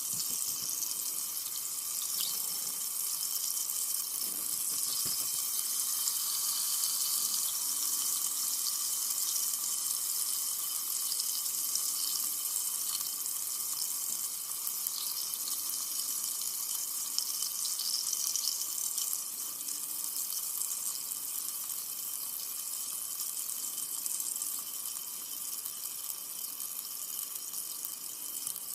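Carbonated soda fizzing: a steady, dense high hiss of tiny bubbles popping.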